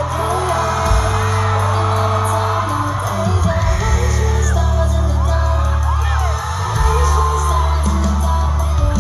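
Pop music with a heavy bass beat and a singing voice.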